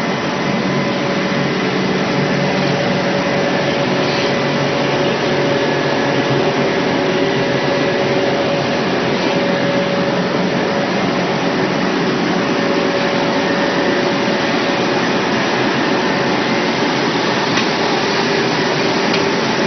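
Cotton baling machine running, a loud, steady mechanical hum with a few held tones, broken only by one or two faint clicks.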